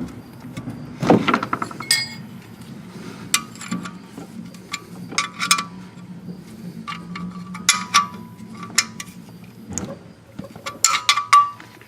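Socket wrench tightening a car's oil drain plug: short runs of sharp metallic clicks and clinks, coming in several separate bursts.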